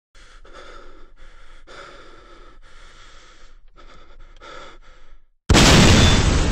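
A person breathing in a string of audible breaths with short pauses, then about five and a half seconds in a sudden, very loud explosion that slowly dies away.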